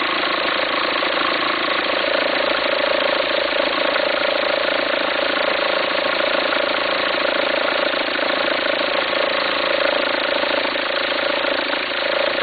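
2004 VW Passat 1.9 TDI four-cylinder turbodiesel idling steadily with an even clatter and a constant drone. The owner hears a farting, rumbling noise at idle with the belt appearing to jump, and suspects a worn alternator pulley.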